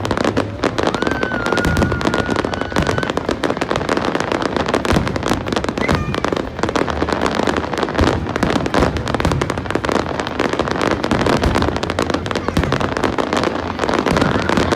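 Fireworks display going off continuously: dense, rapid crackling and bangs with no pause. About a second in, a thin whistle rises and then holds for about two seconds.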